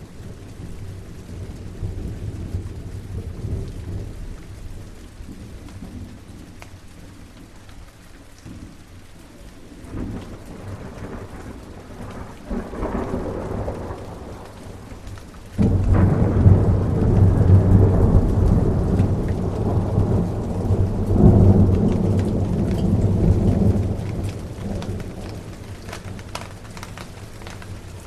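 Thunderstorm: steady rain with a low rumble of thunder building from about ten seconds in, then a sudden loud clap about halfway through that rolls on for about eight seconds before fading back under the rain.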